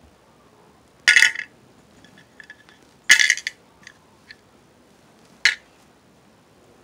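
Small hard game pieces and dice clattering as they are tossed into a box while the game is packed away: three short clattering bursts, about one, three and five and a half seconds in, with a few faint clicks between.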